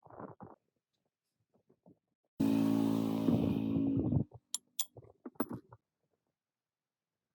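A motor runs loudly for about two seconds, starting and stopping abruptly, followed by a few sharp clicks and knocks.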